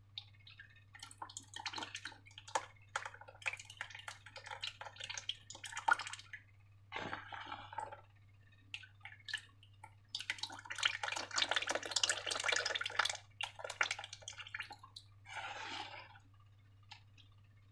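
Wet, sticky slime being squished and worked by hand, with bursts of crackling, squelching clicks. The longest and loudest burst comes about ten seconds in, over a steady low electrical hum.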